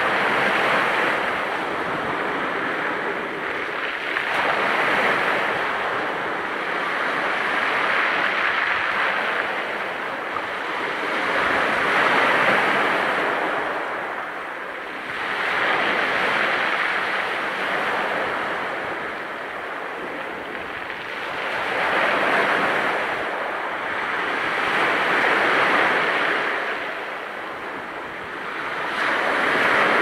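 Small waves breaking on a pebble beach and washing up and back over the stones, the rushing surf and tumbling pebbles swelling and fading every three to four seconds as each wave comes in.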